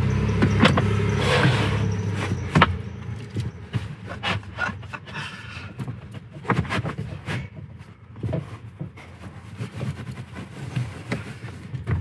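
A fleece-covered plywood platform being lowered onto a folded car seat and shifted into place: scattered knocks and clicks of wood against the seat and car trim, with rubbing and scraping between them, the sharpest knock about two and a half seconds in. A low hum sits under the first couple of seconds.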